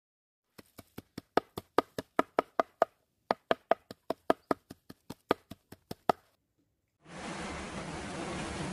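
A quick run of sharp, ringing knocks, about five a second, with a short pause about three seconds in. About seven seconds in, the steady rush of a fast river pouring over rocks begins.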